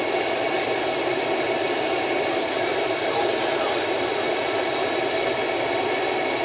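Steady, even rushing air noise with no breaks.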